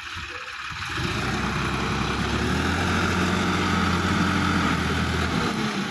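Sonalika DI-50 RX tractor's diesel engine working under load as the tractor climbs out of the mud. The steady engine note comes in loud about a second in and drops away near the end.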